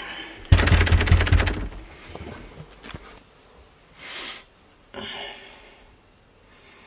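A loud, juddering burst lasting about a second starts half a second in, followed by a man's sharp breaths and sniffs, two short ones about four and five seconds in.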